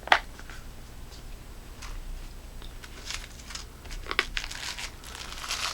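A small flashlight storage case being opened and its contents handled. There is a sharp click just after the start, then scattered light clicks and crinkling of packaging.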